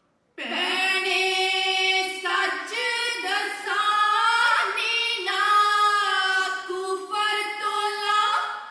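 A woman's voice singing a Punjabi folk song unaccompanied through the stage microphones, in long held, wavering phrases. It begins after a moment of silence and fades away near the end.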